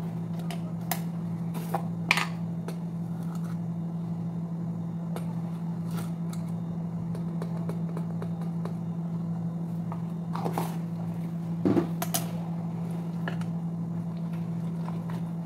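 A teaspoon scraping and tapping in a small plastic tub of baking powder: a few light clicks, the loudest about two seconds in and again around eleven to twelve seconds in, over a steady low background hum.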